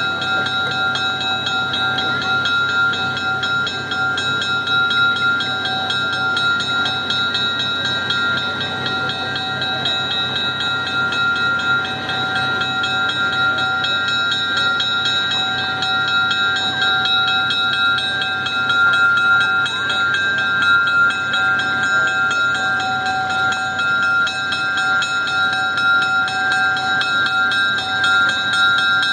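A diesel locomotive running as it draws a passenger train slowly into a station, with a bell ringing steadily over it.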